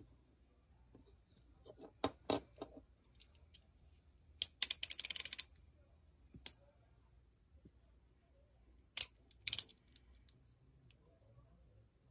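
Snap-off blade utility knife (cutter) having its blade pushed out by the ratchet slider: a quick run of clicks lasting about a second near the middle. A few single clicks and taps come before and after it.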